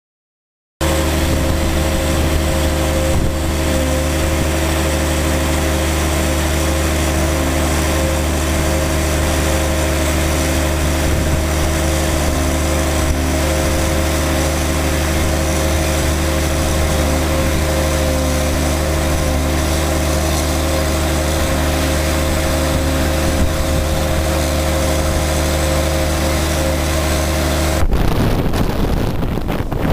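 Amphibex 400 amphibious dredger's diesel engine running steadily at constant speed while dredging, a low, even hum with unchanging pitch. It starts abruptly about a second in, and near the end it gives way suddenly to wind buffeting the microphone.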